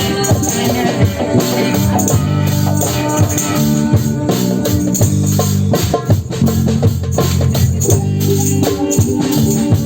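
Live psytrance music: a steady, evenly spaced beat over sustained low synth notes that change pitch every second or so.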